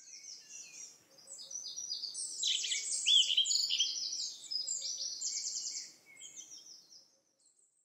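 Songbirds chirping, many quick high chirps and trills overlapping one another, building up about two seconds in and dying away near the end.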